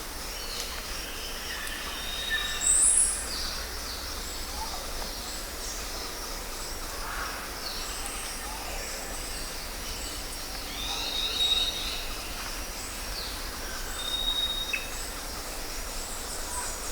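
Jungle ambience: assorted bird calls and chirps over a steady background hiss, with a short high whistle heard several times and the loudest call, a sharp high one, about three seconds in.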